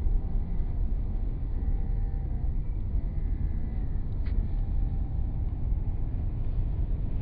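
Steady low rumble of a car's road and engine noise heard from inside the cabin while driving. A single short click about four seconds in.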